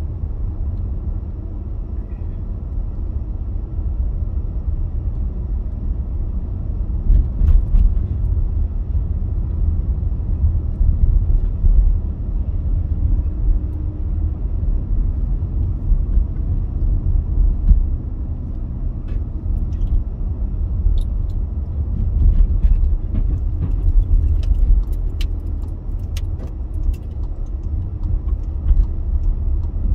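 Car driving through town streets, heard from inside the cabin: a steady low rumble of engine and tyres on the road. A scattering of small clicks and rattles comes in the second half.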